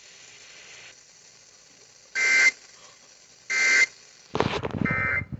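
Emergency Alert System end-of-message tones: three short bursts of SAME digital data, each a harsh two-tone warble, about a second and a half apart, closing the broadcast tornado warning. A louder low rumbling noise starts just before the third burst.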